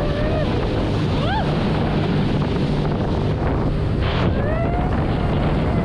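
Jet ski running at speed: a steady engine hum under heavy wind buffeting on the microphone and rushing spray. A few short tones glide up and down over it.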